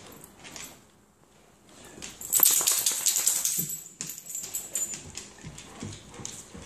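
A Dogo Argentino working at something on a rug with its head down: a close, dense run of rapid scratching clicks lasting about two seconds, followed by a few soft thuds.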